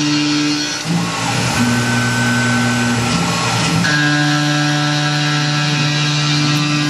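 Tormach PCNC 1100 CNC mill machining aluminum stock: a steady whine from its motors over the cutting noise. The pitch drops for about three seconds starting about a second in, then returns.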